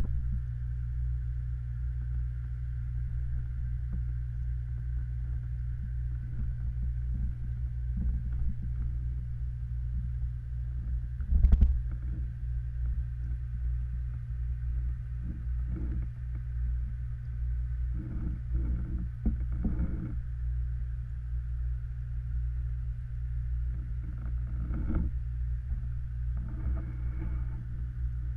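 Underwater noise in a koi pond: a steady low hum with a faint higher hiss, the pond's running equipment and air bubbles heard through the water. Scattered soft knocks run through it, with one louder bump about eleven seconds in.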